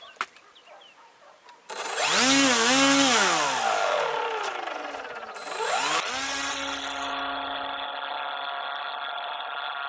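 Electric motor and propeller of a small RC stick plane (200 W, 900 kV brushless) starting abruptly about two seconds in, with a high whine. It is revved up and down a couple of times, then its pitch slides down. A second full-throttle surge comes about five seconds in, and the motor then settles to a steady, quieter note as the plane is launched and flies off.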